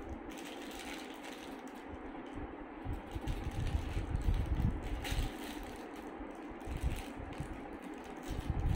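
Plastic snack wrappers crinkling and tearing as they are unwrapped by hand, with irregular low handling thuds, over a steady background hum.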